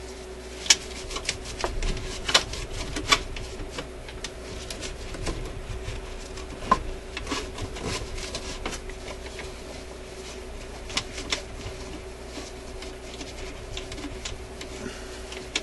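A paper tissue wiping and rustling over the metal mechanism of a record player, with irregular sharp clicks and taps as fingers knock against the metal plate and levers. The loudest clicks come just under a second in and about seven seconds in.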